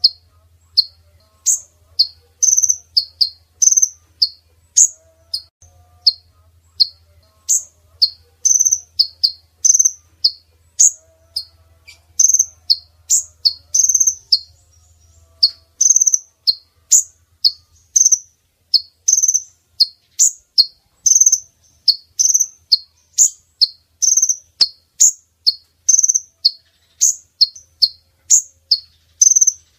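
Female kolibri ninja sunbird calling: short, sharp, high chirps repeated two to three times a second, a steady run of calls used as a lure to draw in males.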